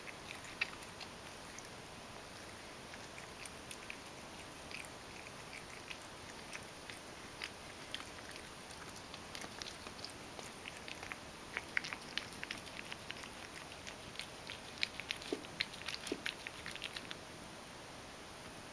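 Ragdoll cat eating crushed dry kibble softened with hot water: a run of small, quick chewing clicks, sparse at first and much busier in the second half.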